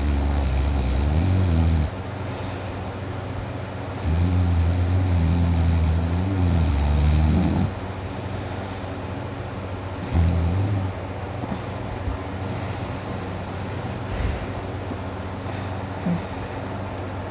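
A sleeping man snoring loudly through a wide-open mouth, a low drone with a wavering pitch. A snore ends about two seconds in, a long one of about three and a half seconds follows, and a short one comes a little past the middle.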